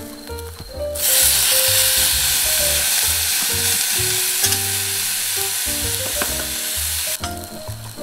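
Food frying in hot oil in a cast-iron pot: a loud sizzle starts suddenly about a second in, as chopped tomatoes go in, and falls away near the end, while a wooden spatula stirs. Background music plays underneath.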